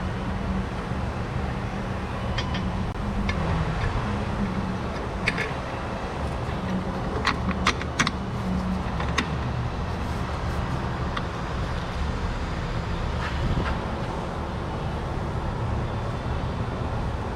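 Sharp metallic clinks of tools and suspension parts being handled, scattered a few times over a steady low hum.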